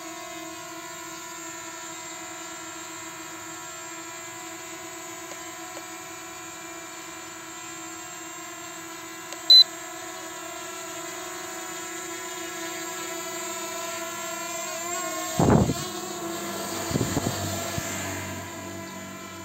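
Small quadcopter drone (X3 MAX) hovering, its propellers giving a steady high-pitched hum. A single short, sharp beep sounds about ten seconds in. Near the end the hum wavers as the drone moves, and two loud rushes of noise come a second and a half apart.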